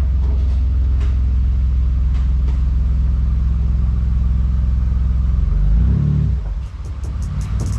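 Twin-turbocharged Mitsubishi V6 of a swapped 2001 Dodge Stratus running steadily on a chassis dyno, a loud deep exhaust note that holds even, then changes and drops off about six seconds in. Music with a beat comes in near the end.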